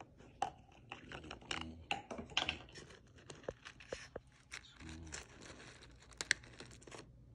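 Foil seal on a plastic food jar crinkling and tearing as a thumb pushes through it, with clicks and knocks from the jars being handled. The sharpest click comes about six seconds in.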